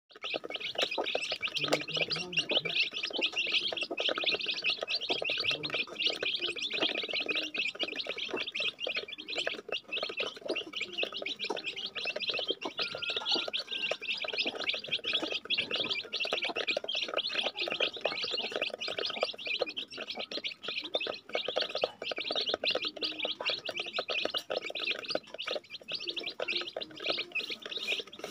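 A brood of young chicks peeping without a break, many high, short chirps overlapping as they feed.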